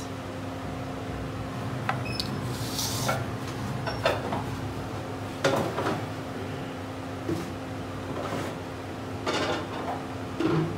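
Kitchen handling sounds: scattered light knocks and clinks of spice containers and a spoon, with one short rustling hiss about three seconds in, as red chilli powder is added to a food chopper bowl. A steady low hum runs underneath.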